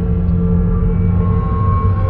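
Eerie horror background music: a low, sustained drone of held tones over a deep rumble, with a higher tone entering about halfway through.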